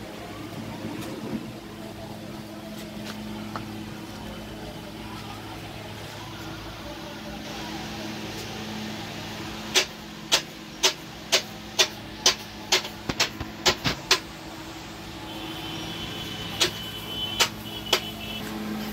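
Automatic agarbatti (incense-stick) making machine switched on for a test run: a steady electrical hum, then about ten sharp, regular clicks roughly two a second from its mechanism near the middle, and a few more near the end.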